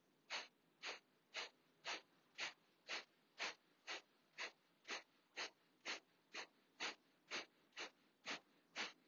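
Kapalabhati breathing: short, forceful exhalations puffed out through the nose by pumping the belly, evenly paced at about two a second, with the in-breaths too soft to hear.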